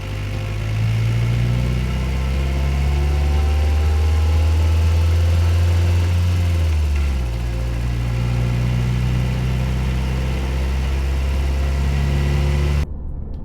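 Nissan Qashqai I's 1.6-litre petrol four-cylinder engine running at steady revs, a deep constant drone that steps to a different pitch about a second in and again around seven seconds in, then cuts off abruptly near the end.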